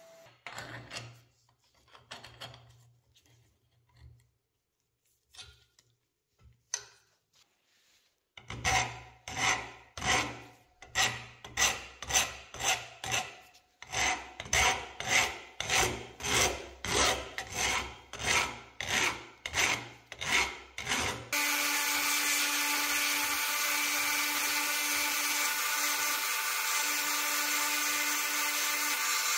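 A flat hand file rasping across the edge of a cast iron stove part, first in a few scattered strokes and then in even back-and-forth strokes, about one and a half a second. About two-thirds of the way through, a small rotary tool starts and runs steadily as its bit works the casting.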